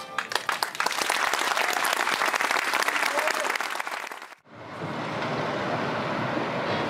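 Audience applauding, the clapping thinning out after about four seconds; then, after a sudden cut, a steady background din with voices.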